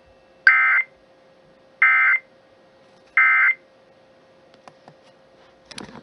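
Emergency Alert System end-of-message (EOM) code: three short bursts of buzzy two-tone digital data, about a second and a half apart, the signal that closes the alert and returns the station to normal programming.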